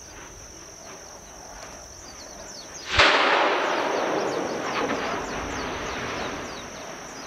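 Volcanic explosion during the 2018 Kīlauea eruption: a sudden sharp boom about three seconds in, followed by a long rushing rumble that slowly fades. Before it, and faintly under it, runs a steady high-pitched hum with short falling chirps.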